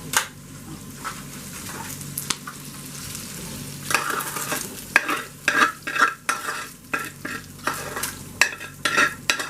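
Browned ground beef sizzling in a frying pan; about four seconds in a utensil starts scraping and knocking against the pan as the meat is stirred and moved.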